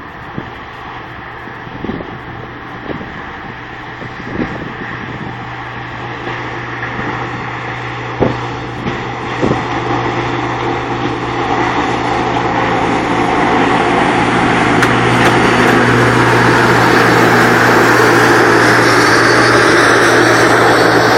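Freight train wagons rolling slowly over the rails: a steady rumble with a low hum underneath and a few sharp clanks in the first half, growing louder and brighter in the second half.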